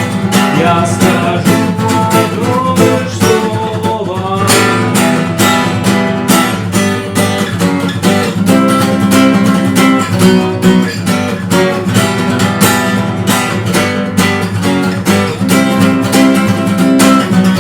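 Acoustic guitar strummed in a steady, even rhythm, chords ringing on.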